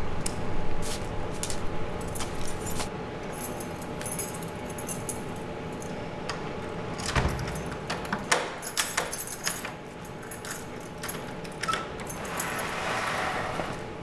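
A bunch of keys jangling and clicking against a door lock, with irregular metal clicks and jingles, as a key is fumbled into a wooden door's lock. A faint steady hum runs underneath.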